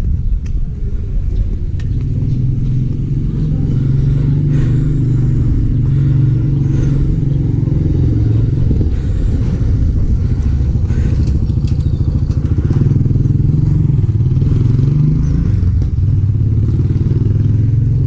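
A vehicle engine running steadily with a low rumble, its pitch wavering up and down.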